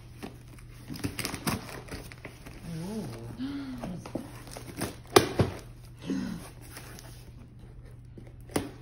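A cardboard shipping box being opened: scissors cutting and pulling at the packing tape, cardboard rustling and scraping, with a few sharp knocks about five seconds in and near the end. Brief murmured voices come in between.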